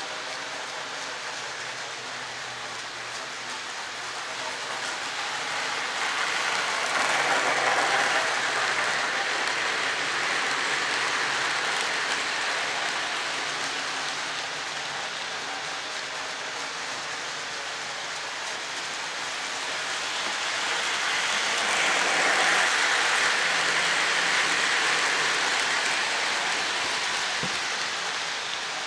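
Lionel O-gauge Chessie GE U36C locomotive and a train of coal hoppers rolling round a loop of model track, a steady rolling hiss and rumble of wheels and motor. It swells twice, about a quarter of the way in and again about three quarters in, as the train comes close.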